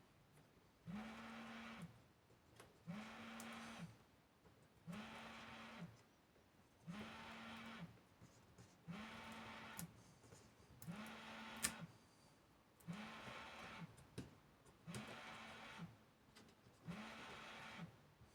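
A small motor buzzing in regular pulses, each about a second long and spaced about two seconds apart, its pitch sliding up as it starts and down as it stops.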